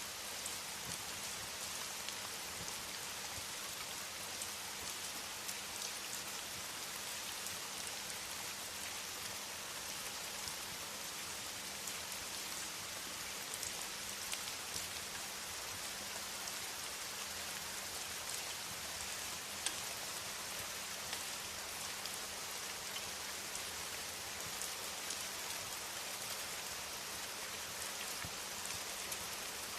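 Steady rain, an even hiss, with a few faint clicks scattered through it.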